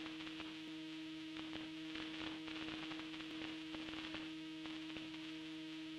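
A steady low hum under crackling static and hiss, the tail end of the outro's background music.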